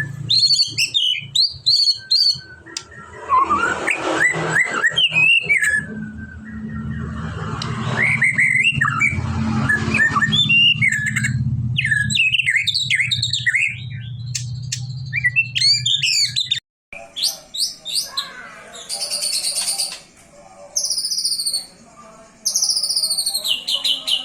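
White-rumped shama (murai batu) singing loudly and continuously in varied whistles, rapid chattering runs and gliding notes. About two-thirds through the sound breaks off briefly and a run of repeated, falling high phrases follows.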